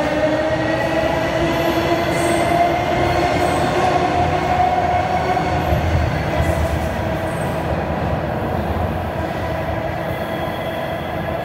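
Toronto Rocket subway train pulling out of the station, its traction motors whining and rising in pitch as it accelerates over a rumble from the wheels. The whine levels off after a few seconds and slowly fades as the train leaves.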